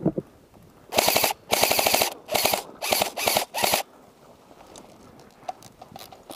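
Airsoft electric rifles firing several short full-auto bursts of rapid clicking shots between about one and four seconds in, then a few faint scattered shots.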